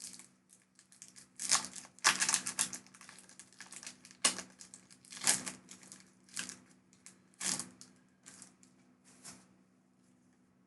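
Foil wrapper of a Pokémon TCG booster pack crinkling and tearing as the pack is opened, in irregular bursts that die away near the end.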